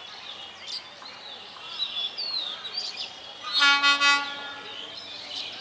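Diesel locomotive horn sounding one blast, about a second long, about three and a half seconds in, from an approaching train. Birds chirp throughout.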